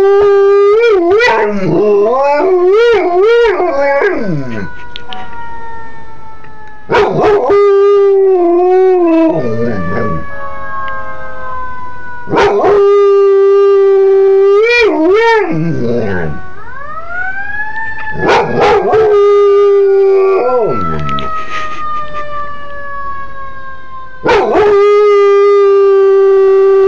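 Dog howling along with passing emergency-vehicle sirens: about five long howls, each held on a steady note, then wavering and sliding down at the end. The fainter siren wails sound behind them and slowly fall in pitch.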